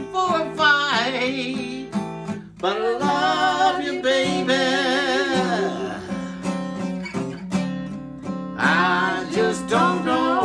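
Acoustic guitar playing a blues accompaniment, with long wavering notes held over it and no words sung.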